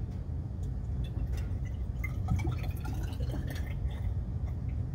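Rapid fixer being poured from a plastic bottle through a funnel into a graduated cylinder: a trickle of liquid with small dripping sounds, mostly between about one and four seconds in, over a steady low background rumble.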